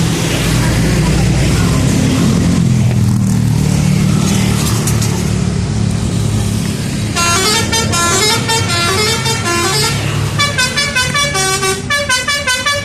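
A bus engine running, then from about seven seconds in the bus's telolet horn, a set of multi-tone musical horns, plays a quick melody of stepped notes in short repeated phrases.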